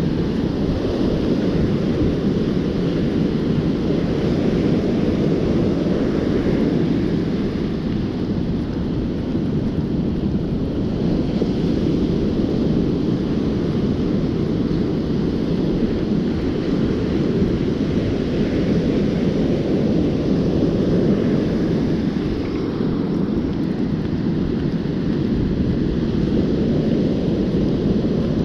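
Steady rush of ocean surf breaking and washing up a sandy beach, mixed with wind buffeting the microphone, swelling and easing every several seconds.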